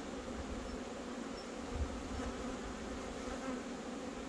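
Honeybees buzzing around a row of hives: the steady hum of many bees flying at the entrances, with a soft low bump about two seconds in.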